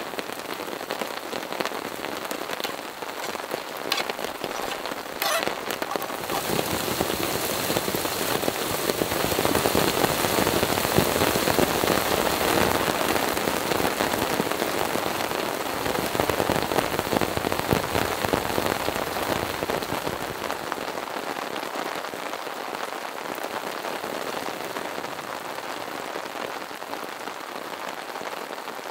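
Heavy rain falling on a tarp and the surrounding forest, a steady hiss with a few louder single drops in the first seconds. It grows heavier from about six seconds in, is heaviest around ten to thirteen seconds, and eases off somewhat in the last third.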